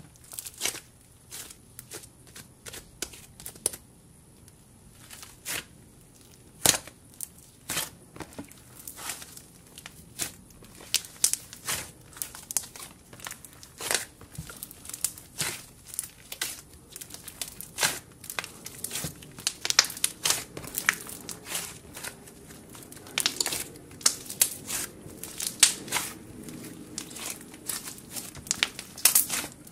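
Slime being squished, pressed and folded by hand, giving irregular sharp clicks and crackles. They are sparse at first and come thick and fast from about a third of the way in.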